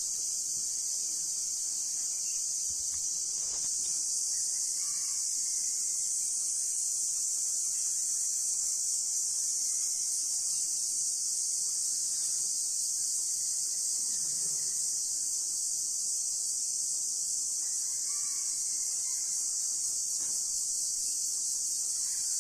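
Steady, high-pitched insect chorus, an even shrill buzz, with a few faint short calls now and then.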